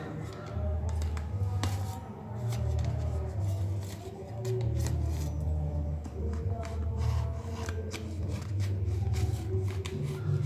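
A knife blade scraping and snagging on a parcel's stiff white paper wrapping, with crinkling paper and many short sharp clicks; the paper resists being cut and torn. Underneath runs a low drone that swells and fades every second or so.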